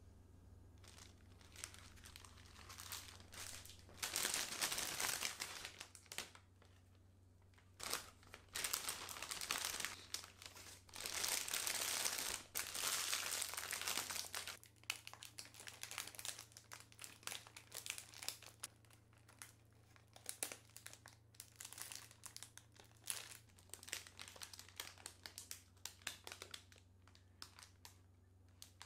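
A clear plastic cake bag crinkling and rustling as a cake is slid into it and the top gathered and twisted closed. It comes in irregular spells, loudest in the first half, then lighter crackles.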